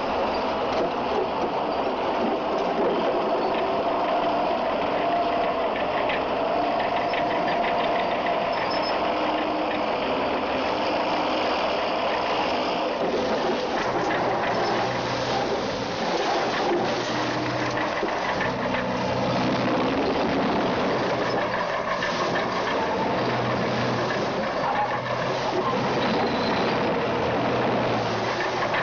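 Crawler bulldozer running steadily under load with a constant rattle as its blade pushes through a hedge and small trees.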